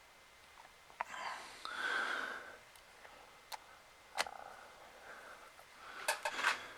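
Small sharp clicks and a scraping rustle, the sounds of hands and tools working on a handheld game console's plastic parts during a repair: a scrape about a second in, single clicks, then a quick run of clicks near the end.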